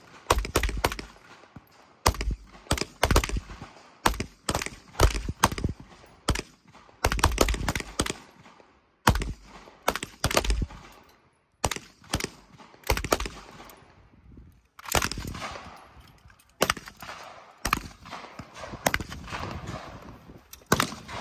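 Gunfire on a shooting range: rapid strings of shots with short pauses between them.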